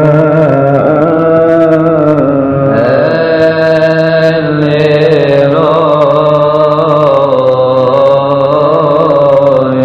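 Coptic Orthodox Kiahk psalmody: chanting voices draw out a long wordless melismatic melody that winds slowly up and down over a steady low held note.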